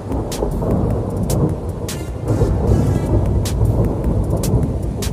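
Distant thunder rolling in a long low rumble, with scattered sharp clicks over it.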